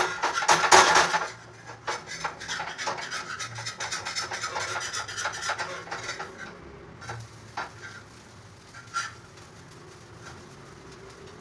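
Metal spatula scraping a dosa off a worn dosa griddle (tawa). It is loud and dense for about the first second, then turns into lighter scraping strokes and a few scattered clicks. The dosa is sticking to the worn pan and won't come away cleanly.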